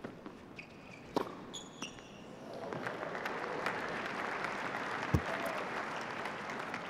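Tennis ball struck with racquets twice in a doubles rally on a hard court, then crowd applause building about two and a half seconds in and holding steady as the point ends, with a single dull thud of a ball bounce just after five seconds.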